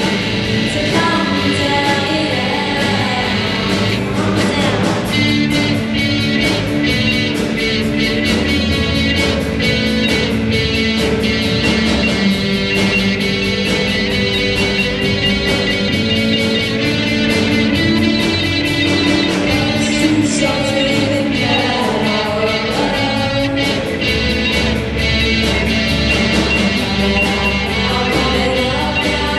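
Rock band playing live: a singer over guitar and a steady drum beat.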